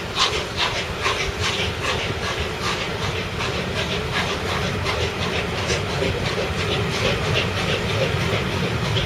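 Peppercorn A1 Pacific steam locomotive 60163 Tornado's three-cylinder exhaust beats chuffing out of the chimney as it pulls away with its train, the beats quickening as it gathers speed, over a steady hiss of steam.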